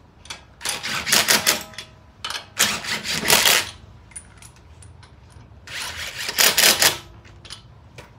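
Cordless impact wrench hammering lug nuts onto a car's wheel studs in three bursts of rapid clicking, each about a second and a half long.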